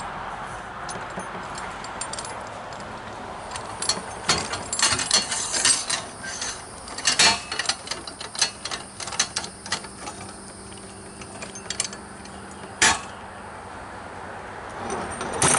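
Steel parts of a Pittsburgh motorcycle tire change stand clinking and knocking as the bead breaker shoe is fitted by hand: scattered bursts of metal clicks through the middle, and one sharper knock about three-quarters of the way through.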